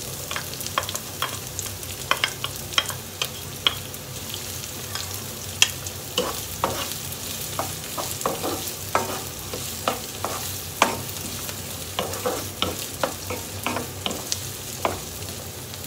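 Diced onion and garlic sizzling in hot oil in a nonstick frying pan, stirred with a wooden spatula that knocks and scrapes against the pan in irregular clicks.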